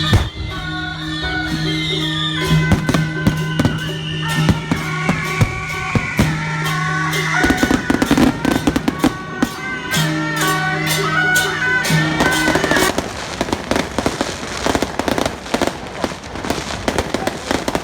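Firecrackers going off in quick irregular bangs, growing denser through the second half, over music with long held notes that stops about two-thirds of the way in.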